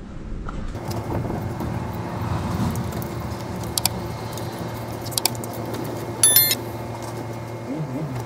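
A steady low motor hum, with a few light clicks and clinks of clothes hangers being hung on an outdoor drying rack. About six seconds in, a brief shrill high-pitched tone is the loudest sound.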